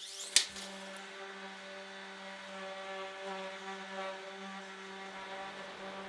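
A sharp click, then an electric power tool's motor whirring at a steady humming pitch, fading near the end.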